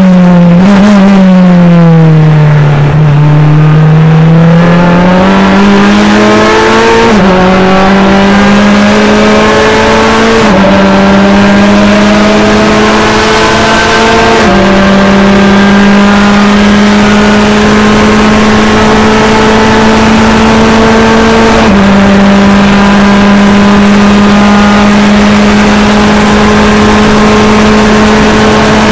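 Nova Proto NP-01 prototype race car's Mazda four-cylinder engine, heard from inside the cockpit. The revs sink for the first few seconds, then the engine pulls hard through the gears: its pitch climbs and drops back at upshifts about 7, 10, 14 and 22 seconds in. After the last shift it holds steady at high revs.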